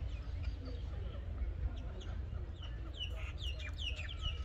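Birds calling: many short, falling chirps that come thickest from about three seconds in, over a steady low rumble.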